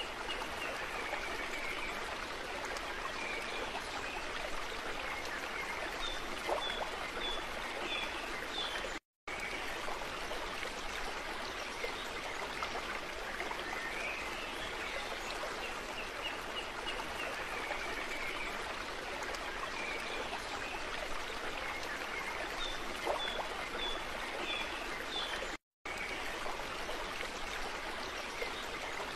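Steady sound of a flowing stream with scattered high bird chirps. The sound cuts out briefly twice, about nine seconds in and near the end, where the recording loops.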